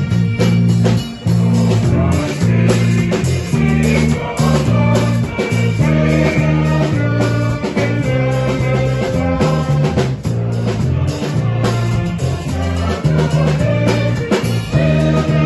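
Instrumental band music with guitar, drums and a strong bass line moving from note to note over a steady beat.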